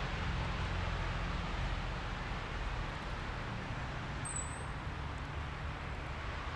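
Steady outdoor noise in a snowstorm: a low rumble with a broad rushing hiss, wind and distant traffic. There is one short high chirp about four seconds in.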